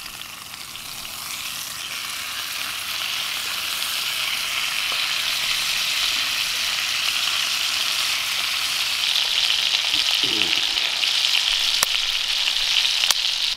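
A Cumberland sausage wheel sizzling in a hot frying pan, the sizzle growing steadily louder, with a couple of sharp pops near the end.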